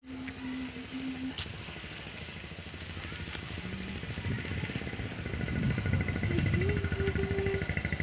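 An engine running, with a low rapid pulsing that grows louder through the second half. A high, fast-pulsing chirp joins near the end.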